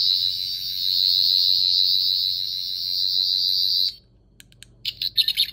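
Sonic screwdriver prop's electronic sound effect: a loud, high, fast-pulsing buzz for about four seconds that cuts off suddenly. A few clicks follow, then a second, choppier high buzzing pattern starts near the end.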